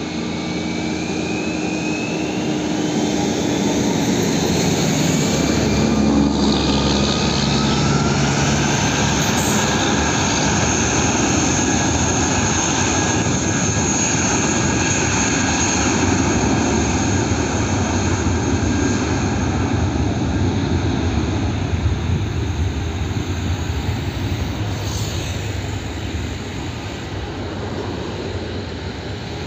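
Airbus A320-family airliner's twin jet engines spooling up with a rising whine over the first few seconds, then a loud steady jet roar through the takeoff roll. The roar eases off near the end as the plane moves away down the runway.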